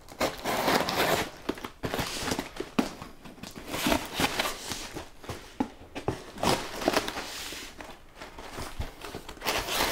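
Packing tape on a cardboard box being slit open with the edge of a small CRKT axe: irregular scraping strokes of the blade along the tape seam, crackling tape and knocks of the box being held and turned.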